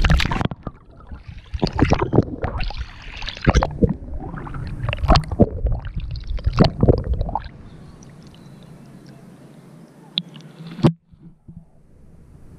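Kayak paddle blade dipping and pulling through lake water close by, a run of splashing, dripping strokes for about seven seconds. Then quieter lapping water, and a single sharp knock near the end.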